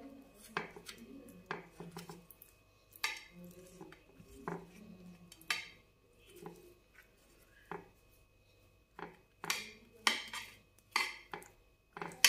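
Metal spoon scraping and clinking against a ceramic plate as sauce is spread over a paratha, in short irregular strokes, with several sharper scrapes near the end.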